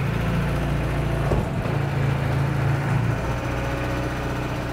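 Old diesel Land Rover engine running steadily, with a brief dip about a second and a half in.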